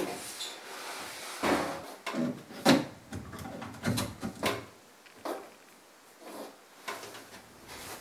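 Irregular knocks, bumps and rubbing as a washing machine and its drain hose are handled and shifted in a narrow cupboard. The loudest knock comes about two and a half seconds in.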